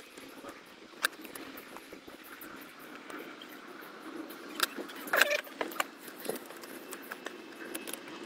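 Scattered small clicks and rattles of a hand working at the plastic wiring connector and cable on a car's alternator, with the loudest cluster of clicks around the middle, over a faint steady background noise.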